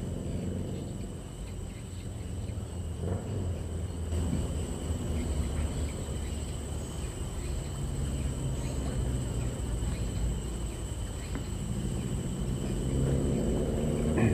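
Outdoor riverside ambience: insects making a steady, high-pitched drone at two constant pitches, over a low rumble that grows a little louder near the end.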